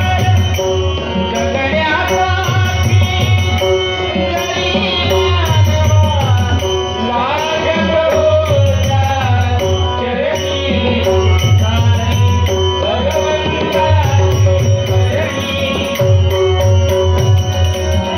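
Music: a melody that slides and bends in pitch over steady held drone notes, with a low drum beating under it.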